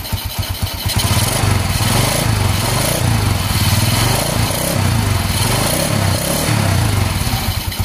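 Motor Star 125 motorcycle's single-cylinder four-stroke engine running, with the revs raised about a second in and held, then easing back near the end, during a charging-voltage check on its new stator.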